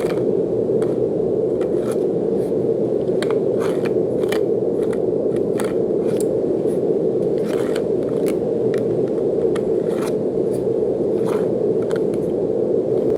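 Steady brown noise, a deep even rushing hiss, with short crisp scraping and clicking sounds scattered irregularly over it, several every second or two.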